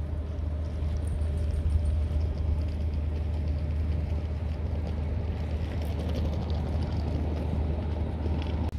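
Steady low engine rumble with the general noise of an outdoor harbour car park.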